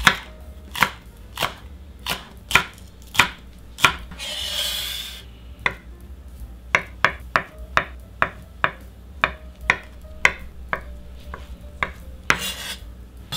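Chef's knife chopping on a wooden cutting board: sharp, evenly spaced knocks, about one every half second while slicing a green onion, then faster, about three a second, while dicing a block of Spam. A short hissing scrape comes twice, about four seconds in and near the end.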